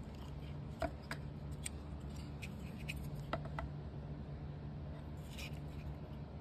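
Handling noise from a speaker crossover circuit board being turned in the hand: a scatter of light clicks and scrapes, the sharpest just under a second in and again at about three and a half seconds, over a steady low hum.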